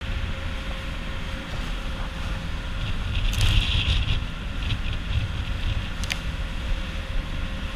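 Wind buffeting the microphone on a moving outrigger boat, over the steady running of the boat's engine and rushing water, with a brief louder hiss a little before halfway and a sharp click a little later.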